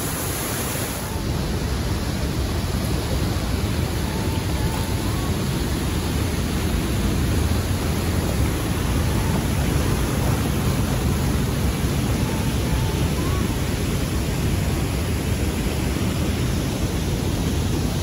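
Waterfalls and white-water rapids rushing close by: a steady, loud, even rush of water.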